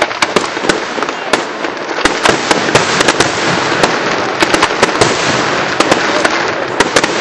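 Fireworks display going off in a dense barrage: a continuous crackle with many sharp bangs on top, starting suddenly.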